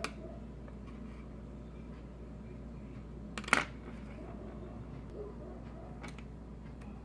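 A few sharp clicks and taps of handling, most likely the diecast airplane model being turned and set against a hard surface, the loudest a quick double click about three and a half seconds in, over a low steady hum.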